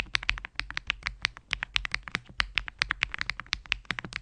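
Typing on a BOC65 mechanical keyboard: a steady run of keystroke clacks, about eight a second.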